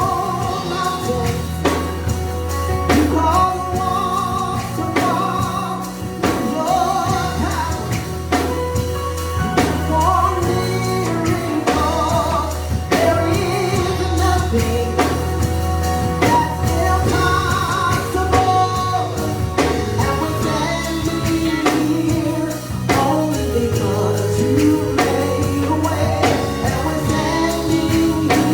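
Gospel worship song: voices singing a melody over a band with steady bass notes and a drum beat.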